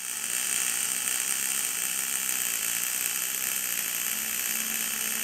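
Welding arc of a BOA-408i bore welder laying weld around the inside of a bore, a steady hiss.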